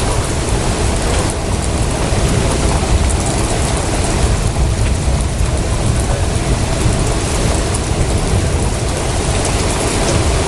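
Heavy thunderstorm rain and wind: a loud, steady rushing noise with a deep rumble underneath.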